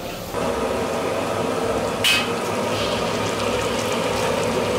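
Egg frying in hot oil in a wok over a gas burner, a steady sizzle over a low hum, with one brief clink about two seconds in.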